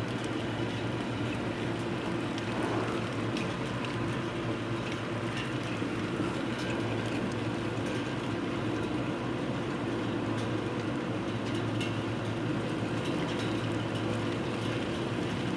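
Hard thunderstorm rain pouring steadily, a dense rush of water with scattered sharp ticks of drops.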